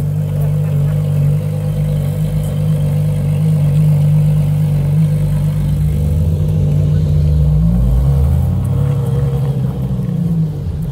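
Ferrari supercar engine running at low revs as the car creeps along the street. Its note drops and then climbs again from about six to ten seconds in.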